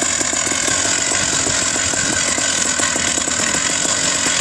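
Paramotor engine running steadily with the propeller turning, an even rapid firing beat with a steady high whine over it, just after being pull-started.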